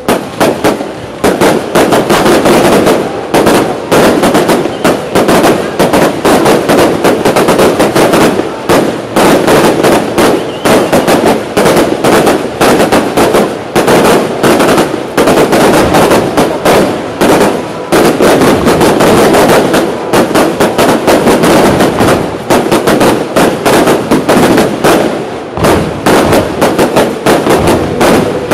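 Fireworks display in a dense, rapid barrage of aerial shells bursting, loud bangs and crackles following one another almost without a break, like machine-gun fire.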